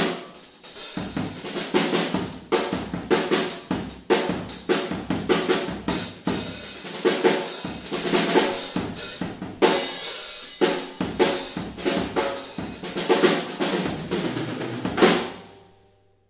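Odery Eyedentity 14x4.5" all-maple snare drum, tuned fairly low, played in a drum-kit groove and fills with bass drum, hi-hat and cymbals. Near the end a last loud hit rings out and dies away.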